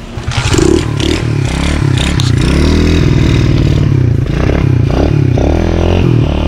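TaoTao DB14 110cc dirt bike's single-cylinder four-stroke engine coming in loud about a third of a second in, then revved up and down over and over, with some mechanical clatter.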